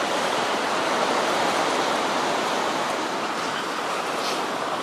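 Surf breaking and washing up a sandy beach: a steady rushing noise.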